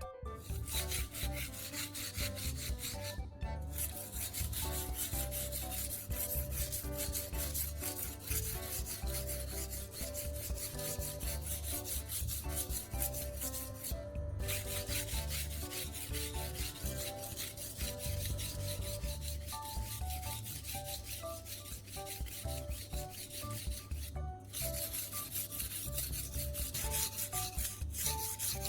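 Steel knife blade scraped back and forth on the 1000-grit side of a wet whetstone under a baking soda paste: a steady gritty rasping of rapid strokes that stops briefly three times.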